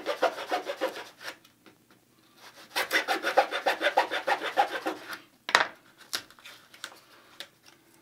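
Fine-toothed razor saw cutting back and forth through the wooden hinge hard point of a balsa RC airplane elevator, at about six quick strokes a second, in two runs with a short pause between. A single sharp crack follows about five and a half seconds in.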